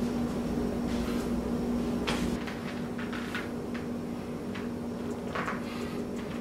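Several short noises from a set of squats on a home squat machine, over a steady low hum.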